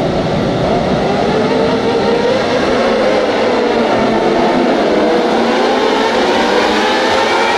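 A pack of 600cc sport motorcycles revving and accelerating away from a race start, many engines sounding together. Their pitches rise and overlap as the bikes pull away.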